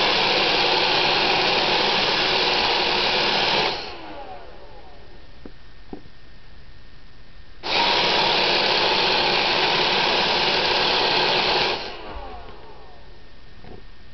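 Roomba robot vacuum's motors cycling on and off. They run for about four seconds, cut out with a falling whine as they spin down, and start again about four seconds later. The stuttering on-off cycle is the malfunction the owner calls a seizure.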